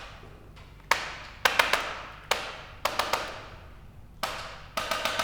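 Hands tapping sharply on a patient's shoulder and back during chiropractic treatment. There are three rounds, each a single tap followed by a quick run of four or five taps, each tap ringing briefly.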